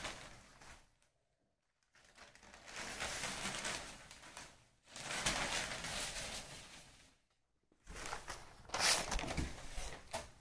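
Thin mulmul cotton saree fabric rustling as it is handled, unfolded and spread out, in three separate bursts of soft rustling.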